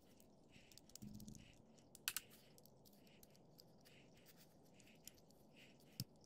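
Faint clicks and light rattling from hands handling the switch and wiring of a vintage Metabo electric drill, with a sharper click about two seconds in and another near the end.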